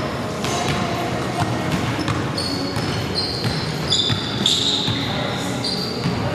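Basketball being dribbled on a hardwood gym floor during a pickup game, with sneakers squeaking several times in the second half.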